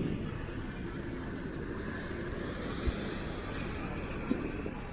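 Steady outdoor traffic noise with a low rumble, and a brief faint knock about three seconds in and again near the end.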